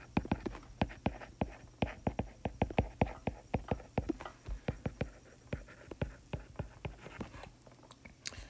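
Stylus tapping and scratching on a tablet screen while words are handwritten: a fast, irregular run of light clicks, several a second, thinning out near the end.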